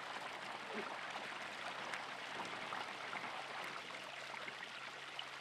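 Water running steadily, with a flock of goats and sheep moving about. A single short, wavering call from the flock comes about a second in.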